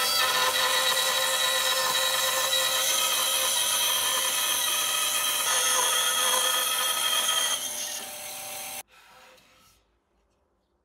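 Bandsaw cutting a curve through a walnut plank: a steady whine with the rasp of the blade in the wood. It eases off a little under eight seconds in and cuts off suddenly about a second later.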